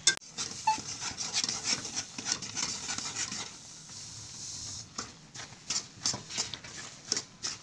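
A metal spoon scraping and stirring in a metal kadhai. About three and a half seconds in, sesame seeds are poured into the hot syrup with a steady hiss. After that come separate scrapes a few times a second as the seeds are stirred in.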